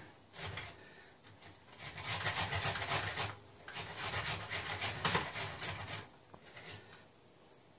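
Raw potato being grated on a handheld box-style grater, runs of quick rasping strokes with a short break in the middle, stopping about six seconds in.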